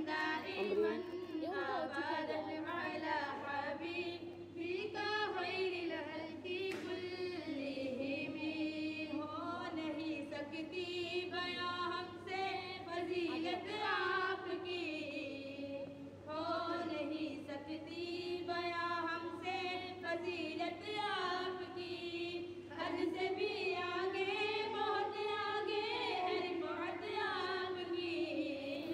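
Female voices singing an Urdu naat (devotional praise of the Prophet) unaccompanied, a slow, wavering melody carried on without break.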